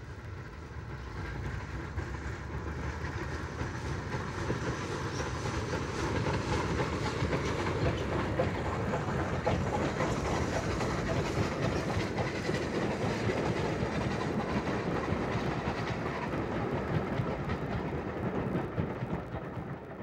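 Merchant Navy class steam locomotive Canadian Pacific running past with a passenger train. The noise of the train grows louder over the first few seconds as it draws near, then holds steady as the coaches go by.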